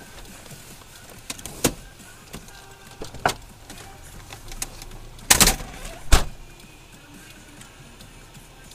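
A few sharp knocks over faint music, the loudest two about five and a half and six seconds in.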